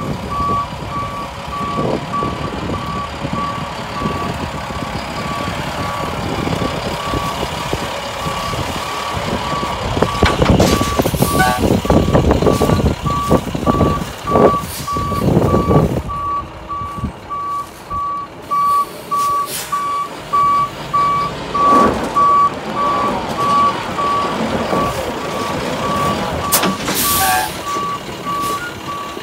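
Flatbed delivery truck backing up slowly with its reversing alarm beeping steadily and its engine running. Wind gusts buffet the microphone, loudest a third of the way in.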